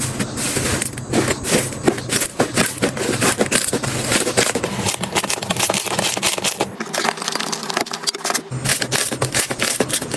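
Slime being squeezed and poked by hand, a dense run of irregular crackling and popping clicks.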